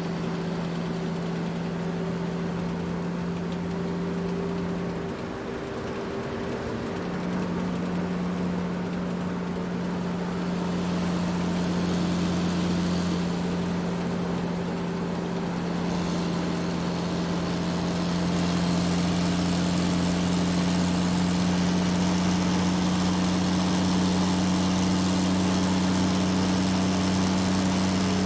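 Large truck engine running steadily while driving, a low, even engine hum. About five seconds in the engine note wavers for a moment before settling again, and it grows slightly louder in the second half.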